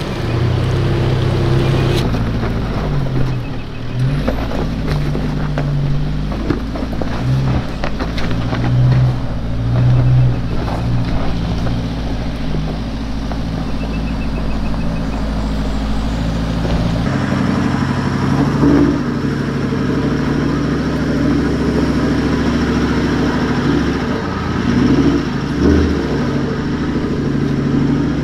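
Four-wheel-drive engines working and revving up and down as the vehicles crawl up a steep, rocky track, with frequent knocks and crunches from the stones under the tyres. About two-thirds of the way through, the sound changes abruptly to a steadier engine.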